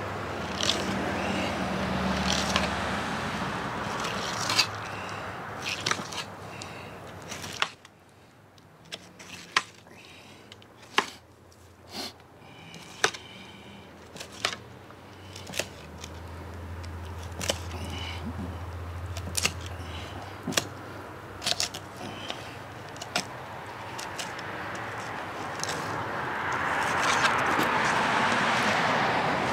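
Fillet knife scraping and clicking against a halibut's bones and the cutting board while the fish is filleted: many short sharp clicks and scrapes. Behind it, the rush of passing traffic at the start and swelling again near the end.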